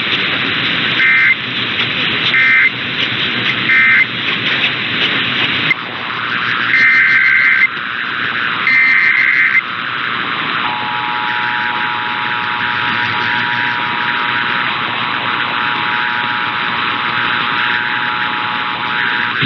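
Emergency Alert System tones over a hissy radio feed. First come three short data bursts, the end-of-message code closing one test. Then come two longer SAME header data bursts, and from about 11 seconds in the steady two-tone EAS attention signal.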